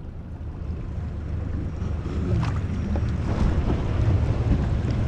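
Wind rumbling on the microphone on a boat's side, with seawater slapping against the hull and growing louder. Two brief splashes come midway.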